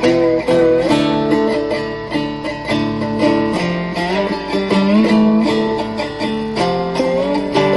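Charles Kimbler-built three-string cigar box guitar played with a Mojobone slide. Picked notes repeat rapidly, and several slide up into pitch.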